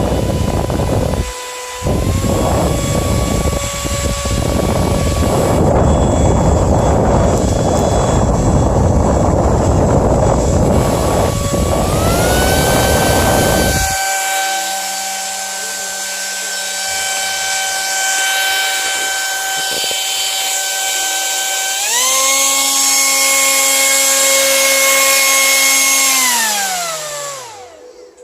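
Brushless 2300 kV racing-drone motor in a converted handheld fan, running with a high whine that steps up to faster speeds three times. A loud rushing noise covers the first half. Near the end the motor spins down with a falling whine.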